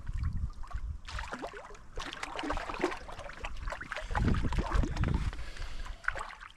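Lake water splashing and lapping against the rocky shoreline, with wind buffeting the microphone and a stronger low gust about four seconds in.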